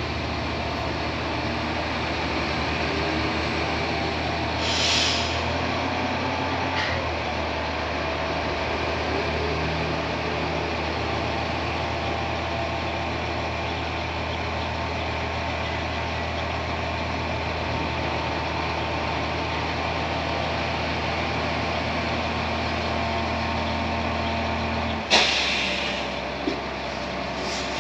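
Diesel tipper truck running steadily while its dump bed is raised, with a short hiss of air about five seconds in. Near the end the engine note changes and a sudden loud hiss of released air follows, with a small knock just after.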